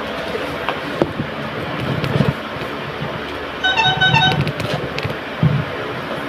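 A horn toots two or three times in quick succession, a steady pitched tone, a little past the middle. Under it are scattered clicks and dull thumps from a cardboard box and scissors being handled.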